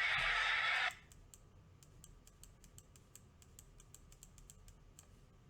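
Intro music cuts off about a second in, followed by faint, irregular clicks of typing on a computer keyboard.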